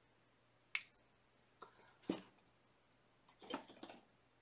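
A few faint, scattered clicks and taps of metal jewelry pliers being picked up and handled, with a small cluster of clicks near the end.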